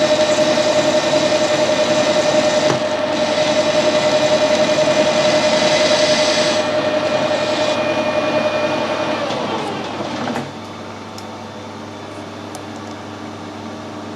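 Metal lathe running while turning a high-tensile steel stud, with a steady whine and cutting hiss. About ten seconds in the whine falls in pitch and the sound drops to a quieter steady machine hum.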